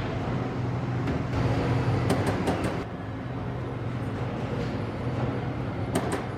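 Industrial machinery running with a steady hum, and a quick run of four sharp metallic clicks about two seconds in and another pair near the end.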